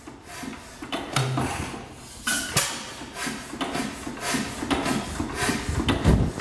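Challenge 6 hp antique stationary gas engine running slowly with no muffler fitted: sharp firing bangs at uneven intervals among mechanical clatter, the heaviest bang about six seconds in.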